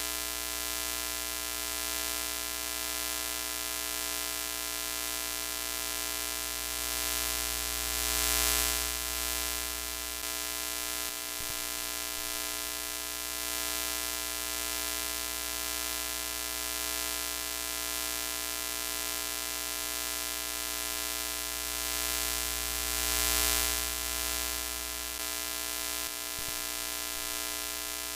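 Broken-TV sound effect: a steady electrical buzz of many evenly spaced tones over a hiss of static. The hiss swells louder twice, then settles back.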